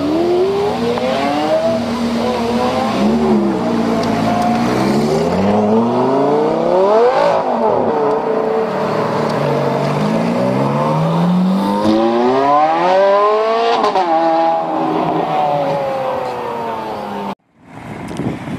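Sports car engine revving hard, its pitch climbing and dropping again several times, as under repeated hard acceleration. It cuts off abruptly near the end.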